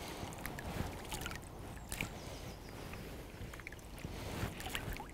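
Shallow lake water sloshing and lightly splashing around an angler wading in the margin as he scatters hemp seed and tiger nuts over his spot, with irregular small splashes.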